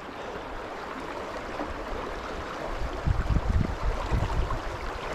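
Steady rush of stream water. From about three seconds in, low rumbling thumps come and go over it.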